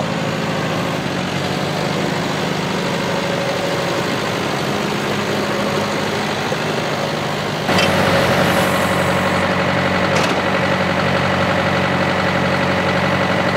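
2007 John Deere 6430's four-cylinder turbo diesel running steadily as the tractor drives slowly. About eight seconds in the sound cuts abruptly to a louder, closer engine idle with a thin steady high whine over it.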